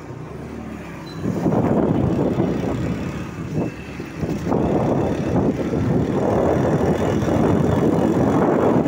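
A road vehicle under way, with wind buffeting the phone's microphone. A faint low hum becomes a heavy, uneven rumble about a second in and stays loud.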